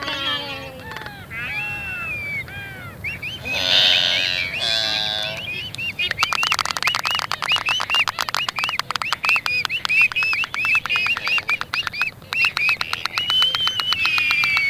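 Albatrosses calling: a run of arching, rise-and-fall cries. From about six seconds in, a fast rattle of clicks, many a second, runs under short repeated calls, typical of albatross bill-clapping.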